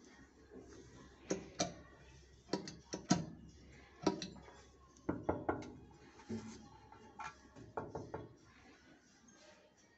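Sharp clicks and knocks, in small bunches of two or three, from a hand pressing the push-button (click-clack) pop-up waste plug in the drain of a ceramic washbasin.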